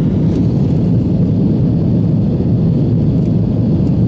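Steady low rumble of an Airbus A330's engines and rushing air, heard inside the passenger cabin during the climb after takeoff.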